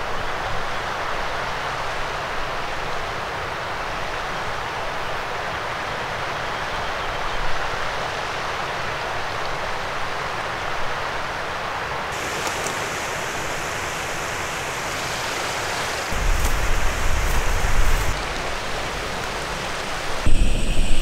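Steady rush of a flowing mountain stream. From about twelve seconds in, faint high chirps join it, and a low rumbling rises over the last few seconds.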